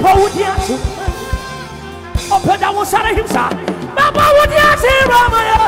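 Live gospel worship music: a male lead singer sings into a microphone over a band with electric bass guitar.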